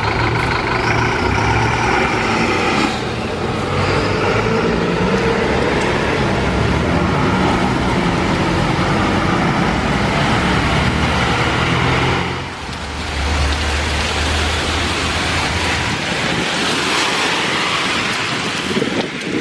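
Diesel city buses running and pulling away along a wet street, a deep engine hum mixed with the hiss of tyres on the rain-soaked road. The sound changes abruptly twice, and a louder hiss swells near the end.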